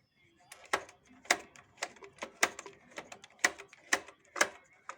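Wertheim sewing machine's mechanism clacking slowly, a sharp click about twice a second with uneven gaps, as it cycles through a stitch.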